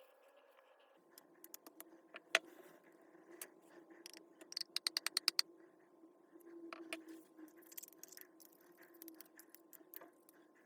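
Clicks and taps of small hard parts being handled on a workbench, with one sharp click about two seconds in and a quick run of about eight ticks around the middle.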